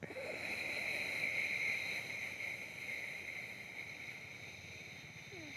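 Slow ujjayi exhalation through one nostril: a steady breathy hiss from the narrowed throat, loudest about a second in and slowly fading as the long out-breath of alternate-nostril pranayama runs on.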